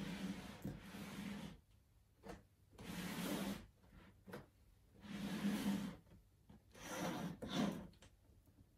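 Cardboard rubbing and scraping as a snug outer box is slid up off an inner cardboard box, in four bursts with short silences between.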